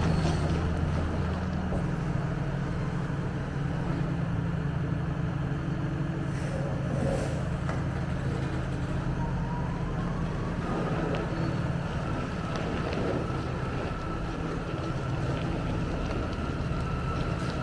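Diesel engine of farm harvest machinery running steadily under load, with a faint steady whine joining about two-thirds of the way through.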